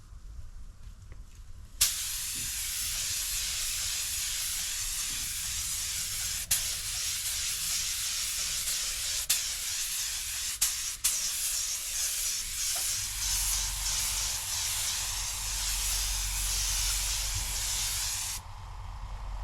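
Compressed air hissing steadily from an air tool during car paint refinishing. It starts about two seconds in, has a few brief clicks and breaks, and stops near the end. A low hum joins about two-thirds of the way through.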